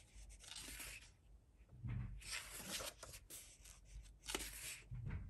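A paper page of a coloring book being turned by hand: a few short, faint rustles and swishes of paper.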